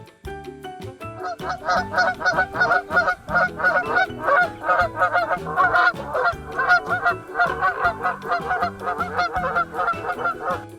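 Geese honking: a rapid, continuous string of short overlapping honks starting about a second in.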